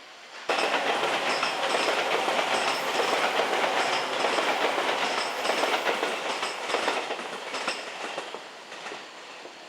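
A train passing on rails, its wheels clattering. It starts abruptly about half a second in and fades over the last two seconds.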